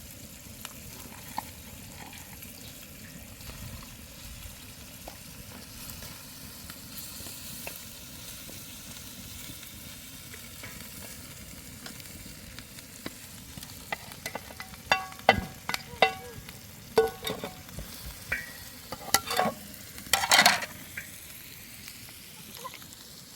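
Food sizzling as it fries in a pan with a steady hiss. In the second half come a series of sharp clinks and knocks, like a utensil stirring and scraping against the pan.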